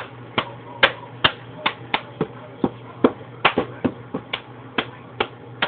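A series of sharp taps, about three a second at uneven spacing, over a steady low hum.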